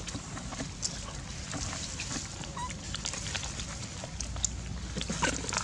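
A troop of long-tailed macaques feeding on the ground: scattered small clicks and crackles from hands and feet in dry leaf litter, with a few brief, faint squeaks.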